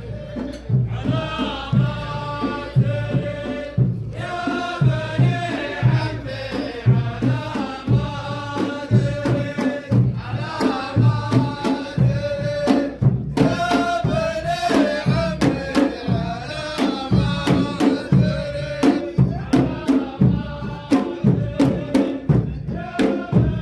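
Saudi ʿarḍah folk performance: a troupe singing a chanted melody together over a steady, repeated beat of drums.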